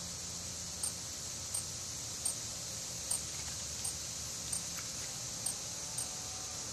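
Insects singing in the darkness of a total solar eclipse: a steady high-pitched drone with a sharp high chirp repeating about every three-quarters of a second.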